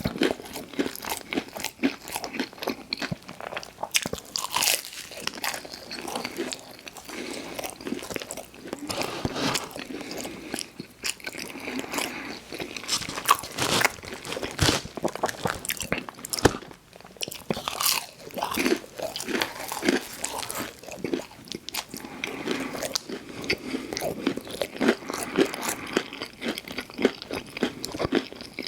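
Close-miked eating: repeated bites and crunchy chewing, with many small sharp crackles and snaps throughout.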